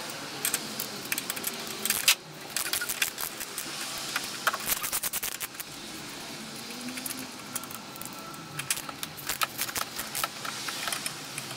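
Socket ratchet clicking in quick runs while the nuts holding the front strut's top mount to the strut tower are loosened, mixed with light metal clinks of the socket and nuts.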